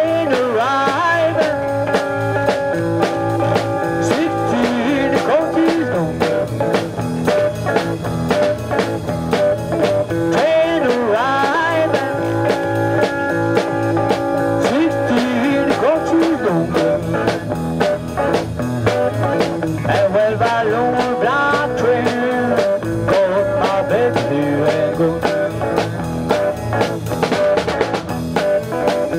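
Live blues band playing an instrumental passage: a bending harmonica lead over electric guitar, bass guitar and drum kit.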